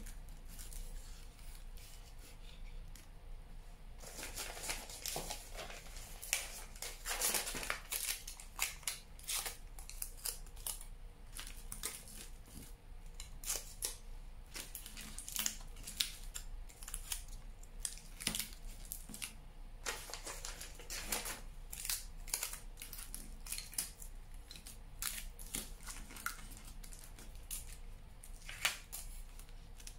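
Aluminium foil crinkling and crackling as it is crumpled and pressed by hand around a wire armature, in short irregular bursts.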